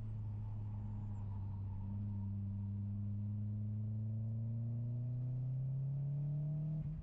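Mitsubishi Lancer Ralliart's turbocharged four-cylinder engine droning steadily, heard from inside the cabin, its pitch slowly rising as the car pulls through a gear, with a brief dip in pitch near the end.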